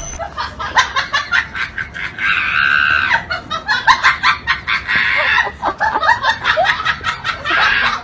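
People laughing, with high-pitched squeals and shrieks mixed in.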